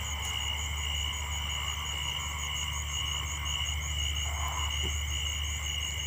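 A night chorus of insects in grassland: a steady high trilling with a faster pulsing trill above it, over a low steady rumble.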